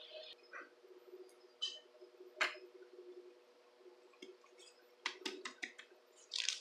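Soft clicks and taps from handling pop-it fidget toys: a single click about two and a half seconds in, then a quick run of about six clicks around five seconds in, and a louder brushing sound near the end as the homemade cardboard pop-it is moved. A faint steady hum lies underneath.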